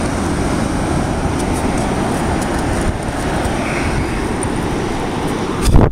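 Sand being shaken through a perforated metal beach sand scoop: a steady low rumble with a light rattle of grit, and one loud knock just before the end.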